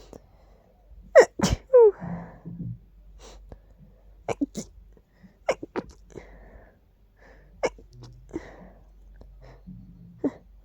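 A person sneezing, brought on by dust. A sharp double sneeze about a second in is the loudest, followed by a string of shorter, quieter ones.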